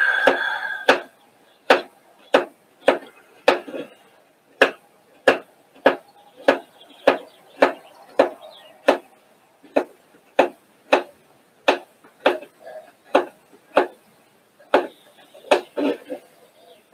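Kitchen knife slicing carrots into thin half-slices on a cutting board: a steady run of sharp knife strikes on the board, about one and a half a second, with a short pause about two-thirds of the way through.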